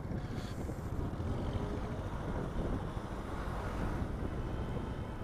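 Hero XPulse motorcycle riding along, its single-cylinder engine running steadily under wind rush on the microphone.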